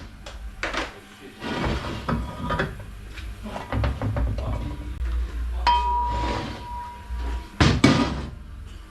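Metal parts and tools clanking and knocking on a workbench as an automatic transmission is taken apart, with one metal piece ringing for about two seconds past the middle.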